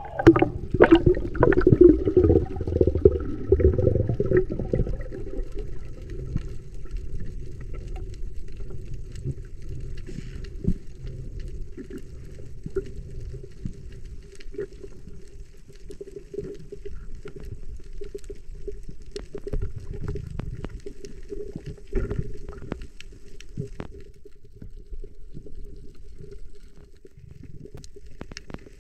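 Underwater sound picked up by a diving camera over a coral reef: a muffled rumble of moving water, loudest in the first few seconds as the diver swims down, under a steady low hum, with many small scattered clicks and crackles.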